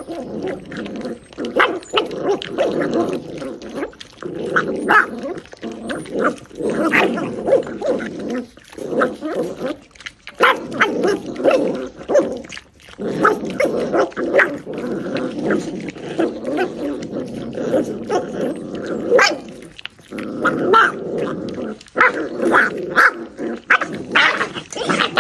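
Corgi puppies growling at each other over a shared food bowl, a dense, overlapping grumble from several pups. Short sharp yips and snaps break in now and then.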